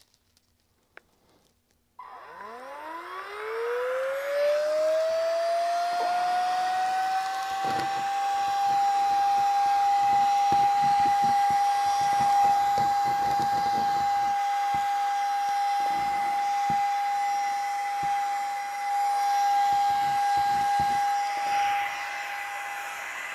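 Handheld cordless vacuum cleaner starting up, its motor whine rising in pitch over several seconds and then running at a steady high whine while it picks up sanding dust, winding down right at the end.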